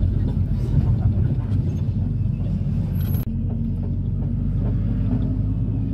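Minibus engine and road rumble heard from inside the passenger cabin while driving, with a steady engine hum that edges up in pitch near the end.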